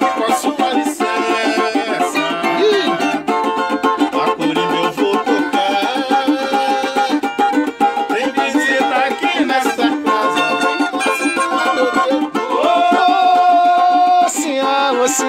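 A samba played on a four-string samba banjo and a cavaquinho, both strummed in a quick rhythm, with a man singing over them.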